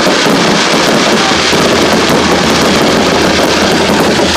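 Fireworks at full barrage: many overlapping bursts and crackles merge into a loud, steady, unbroken noise.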